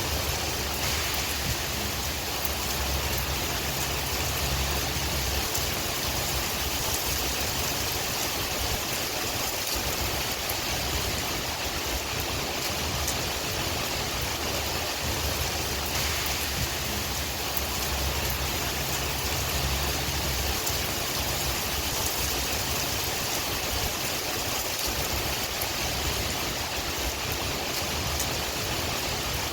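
Steady rain hiss with wind, a low rumble of wind swelling and easing several times.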